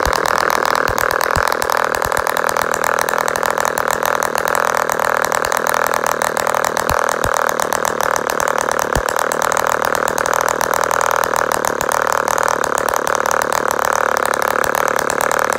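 Webra Speed 61 two-stroke model glow engine running steadily, a loud fast buzz that holds an even speed throughout.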